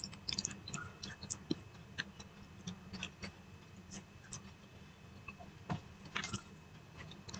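Eating by hand: fingers squishing and mixing food on a plate, and chewing with lip smacks, heard as scattered small clicks and a few louder wet smacks, the largest about six seconds in.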